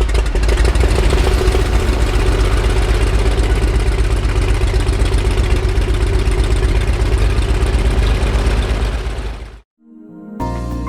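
Light aircraft engine running steadily. It cuts off abruptly about nine and a half seconds in, and soft music begins near the end.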